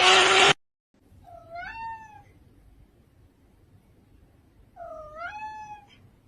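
A domestic cat meowing twice, about three and a half seconds apart; each meow is about a second long, with a pitch that dips and then rises. Before the first meow, a brief loud rush of noise cuts off suddenly.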